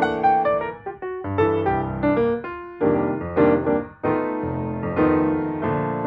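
Background piano music: a steady run of struck notes and chords, each one fading after it is played.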